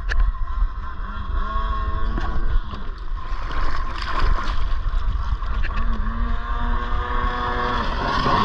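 Jet ski engine running, its note rising and falling several times with the throttle, over a steady low rumble of wind and water on the microphone.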